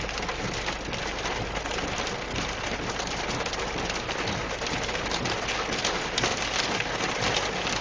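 Heavy rain falling steadily in a severe storm: a dense, even hiss flecked with the patter of drops, at a steady level.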